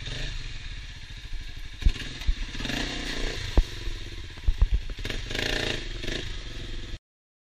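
Engine running, with several sharp knocks and clatter over it; the sound cuts off suddenly about seven seconds in.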